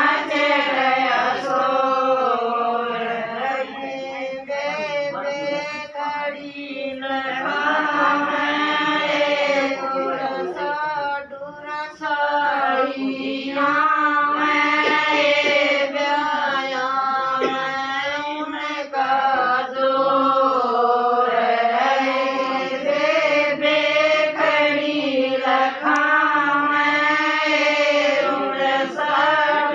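Women singing a Haryanvi devotional bhajan to Krishna in a continuous, wavering melody, with short breaks for breath near the middle.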